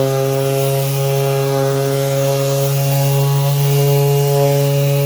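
Bauer 20V cordless detail sander running at a steady speed while sanding scratches out of a motorcycle body panel: a constant, even-pitched motor hum with a faint abrasive hiss over it.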